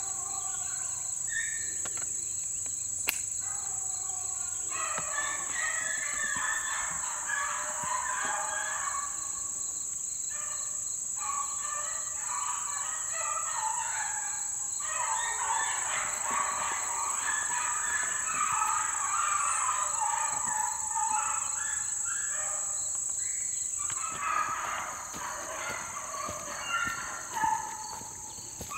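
A pack of beagles in full cry on a rabbit's trail, many voices baying over one another some way off, swelling about five seconds in. Under them runs a steady high buzz of insects.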